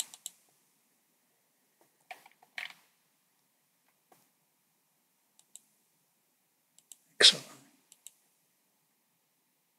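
Faint, sparse computer mouse clicks as menu items and parts are picked, with one brief louder noise about seven seconds in.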